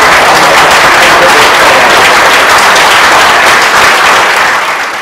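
Hall audience applauding, a dense, steady clapping that fades away near the end.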